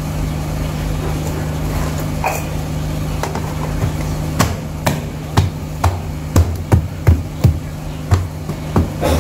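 A steady low hum, then from about halfway through a run of about a dozen sharp knocking strikes with a dull thud, irregularly spaced, a few to each second.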